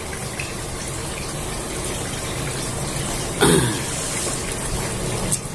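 Steady rushing background noise, with one short vocal sound from the man at the table about three and a half seconds in, a quick grunt or throat sound falling in pitch.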